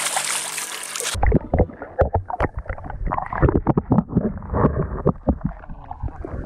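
A brief burst of music cuts off about a second in, then a kayak on the water: irregular knocks and splashes of water against the hull over a low wind rumble on the microphone.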